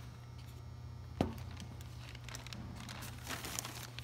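Handling noise on a steel tray: a single sharp knock about a second in, then a plastic bag of PeatSorb absorbent crinkling near the end, over a steady low hum.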